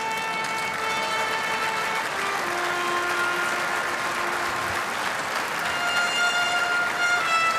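A large audience applauding steadily, with music playing long held notes underneath.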